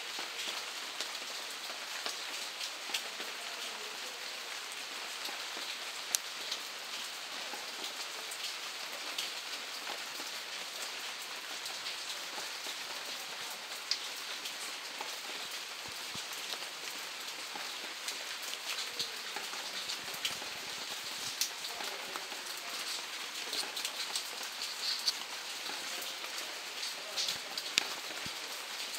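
Steady rain falling, a continuous hiss dotted with scattered sharper drop hits that come more often near the end.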